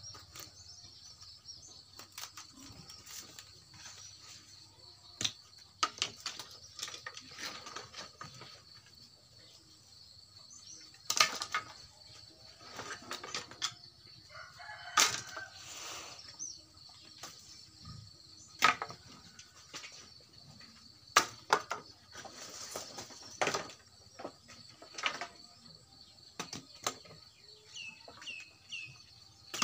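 Dry branches being broken up and chopped for firewood: sharp cracks and knocks at irregular intervals, a few of them loud, with dry twigs and leaves rustling and scraping between blows.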